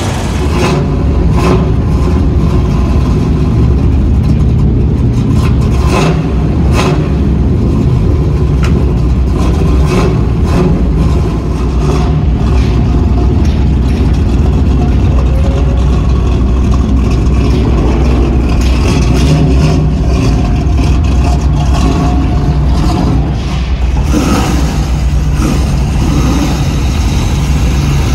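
Loud V8 muscle-car engine running at low revs with a deep, steady exhaust note as the car drives away. There are a few short sharp cracks in the first dozen seconds, and the sound turns brighter and more ragged about 24 seconds in.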